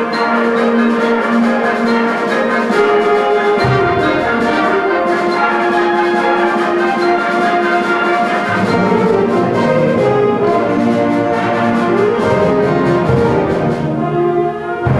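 High school concert band playing sustained chords led by brass. Low instruments come in a few seconds in, the sound fills out further midway, and there is a brief dip just before the end.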